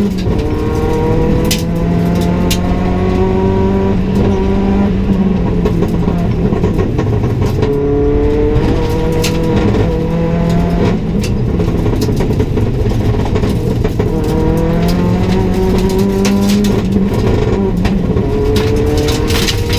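A rally car's engine, heard from inside the cabin, revving hard through the gears: its pitch climbs over a few seconds, then drops at each shift or lift-off, about four times. Sharp clicks and clatters scattered through it are gravel and stones striking the car's underside.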